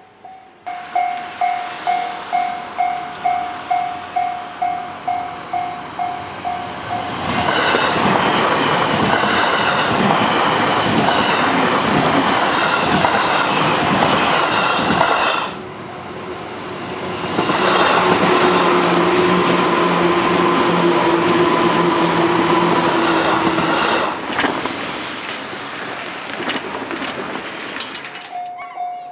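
Japanese level-crossing warning bell dinging about two to three times a second, then an electric train passes loudly for about eight seconds with wheel rumble and rail-joint clicks. After a short dip a second train passes with a steady motor whine, and the bell carries on dinging near the end.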